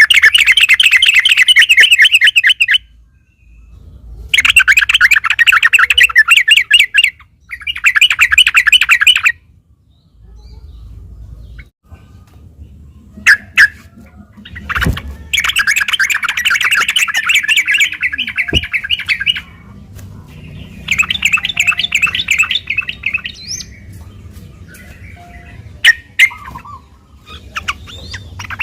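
Yellow-vented bulbul (trucukan) singing its rapid, bubbling chattering song in repeated phrases of about two to three seconds with short pauses between, plus a few sharp clicks in the gaps.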